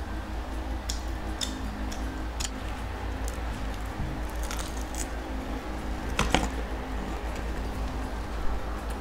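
Close-miked eating: chewing food, with a few short sharp smacks or crunches, the loudest about six seconds in, over a steady low hum.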